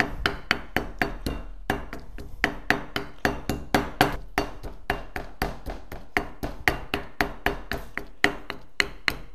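Wooden pestle pounding garlic in a white mortar, rapid even strikes at about four a second with a brief pause about two seconds in, crushing the garlic to a paste.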